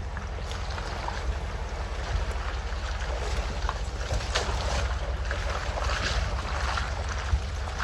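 Vehicle rolling downhill on a rough dirt trail: a steady low rumble with many short crackles and pops from gravel and stones under the tyres.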